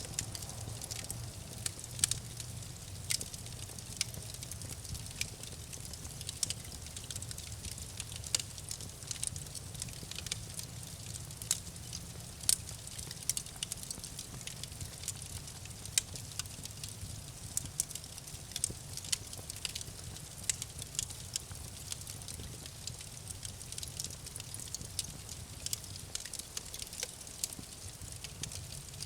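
Campfire burning with a low steady rumble and frequent sharp, irregular crackles and pops from the burning wood.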